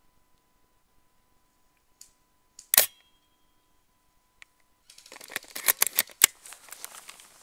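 Tokyo Marui VSR-10 spring-powered bolt-action airsoft sniper rifle firing once, a single sharp crack about three seconds in. About two seconds later comes a rapid string of clicks and rattles as the rifle is handled.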